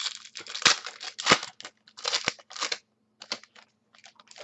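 Trading cards and their foil pack wrappers being handled: a run of short crinkling, rustling scrapes with two louder sharp strokes in the first second and a half.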